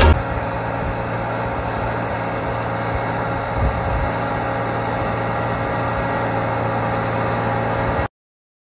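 New Holland M135 tractor's diesel engine running steadily. The sound cuts off abruptly near the end.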